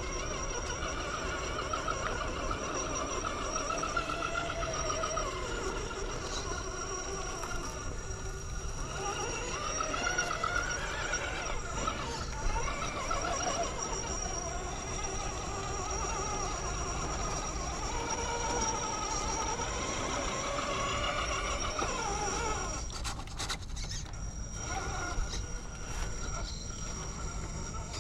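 Electric motor and gear drivetrain of an RC rock crawler whining, its pitch rising and falling slowly with the throttle as it crawls, with a steady high-pitched whine alongside; both stop about four-fifths of the way through.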